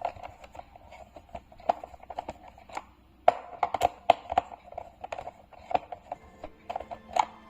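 Irregular sharp clicks and taps of a screwdriver working screws out of a mechanical keyboard's plastic back panel, the loudest a little over three seconds in.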